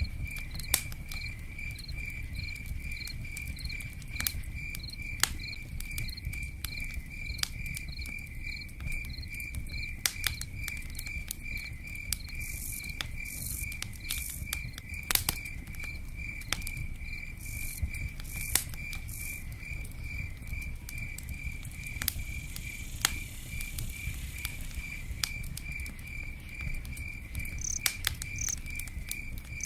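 A cricket chirping steadily in an even pulse of about three chirps a second, over scattered sharp crackles and pops of a campfire and a low steady rumble.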